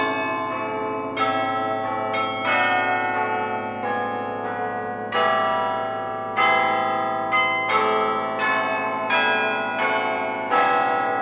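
Bells playing a slow tune, one or two notes struck each second, each note ringing on under the next.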